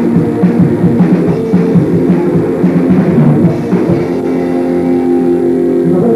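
Punk band playing live: drum kit and guitars in a fast, driving rhythm, until about halfway through the drumming gives way to held, ringing chords.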